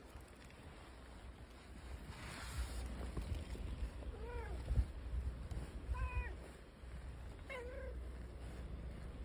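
A cat meowing three times, short arching calls spaced about one and a half to two seconds apart, the last one a little longer.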